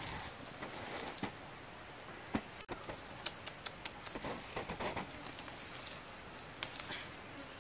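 Leaves rustling and twigs clicking and snapping as leafy branches are pulled down by hand, most busily about four to five seconds in, over a steady high-pitched insect drone.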